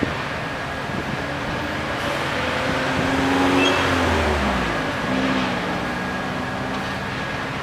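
A motor vehicle passing by, its engine sound swelling to a peak about halfway through and dropping in pitch as it goes past. Under it runs a steady machinery hum with a faint high whine.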